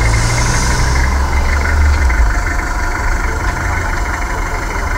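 Mitsubishi Pajero's engine idling steadily.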